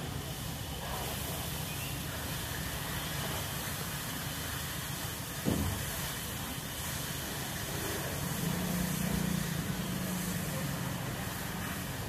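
Steady hiss of a fire hose's water hitting a burning car and turning to steam. A single sharp bang about five and a half seconds in, and a low hum swells briefly near the end.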